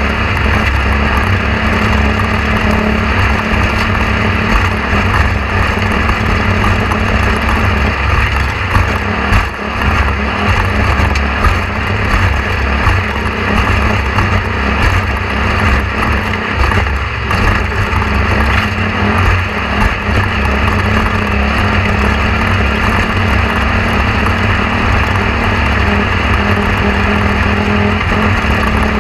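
A motor vehicle running steadily: a loud, even noise with a deep, steady hum underneath.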